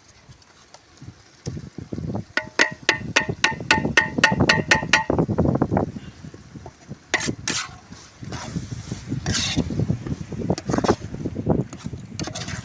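A metal utensil tapped rapidly on a metal cooking vessel, about a dozen ringing strikes at roughly four a second, as ground masala paste is knocked off into the pot. Then irregular scraping and stirring in the pot.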